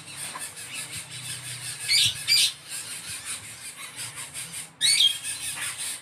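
Coucal chicks giving high, harsh begging squawks while being hand-fed: two calls in quick succession about two seconds in, and another about five seconds in. Under them runs a fast, steady, high-pitched pulsing.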